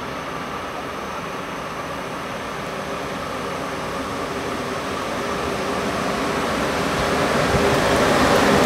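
Electric locomotive hauling passenger coaches approaching along the track, its running and rolling noise growing steadily louder as it nears.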